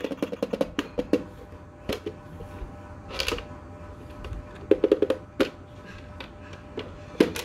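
Fingers tapping and knocking on a plastic electronic toy money box: a quick run of light taps at the start and again about five seconds in, with a few single sharper knocks between.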